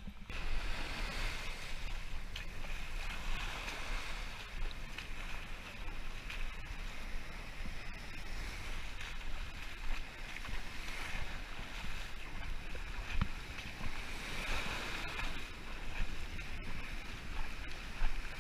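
Surf washing up the beach and foaming around the waterline, swelling and fading every few seconds, with wind rumbling on the action camera's microphone.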